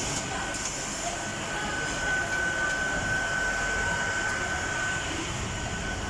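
Automatic film sealing and heat-shrink wrapping machine running: a steady mechanical whir with a thin, steady high whine.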